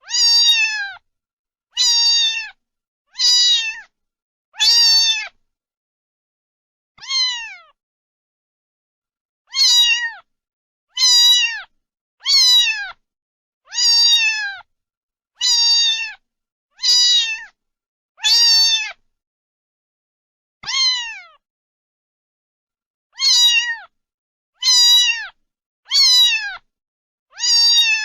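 Domestic cat meowing over and over: about seventeen short meows, each falling in pitch, coming roughly every one to one and a half seconds with a few longer pauses.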